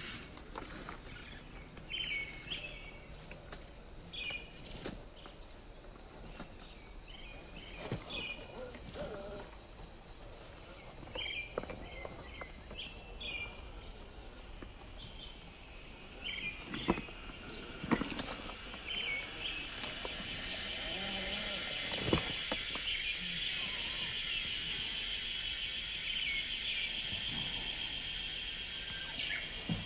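Birds chirping in short, scattered calls. A few sharp knocks fall in the middle, and a steady high buzz builds up through the second half.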